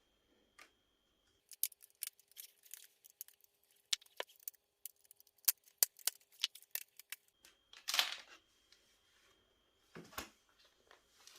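Plastic snap clips of a laptop case clicking and popping in quick, irregular runs as the case is pried apart by hand along its sides. About eight seconds in comes a louder scrape, then a knock or two near the end.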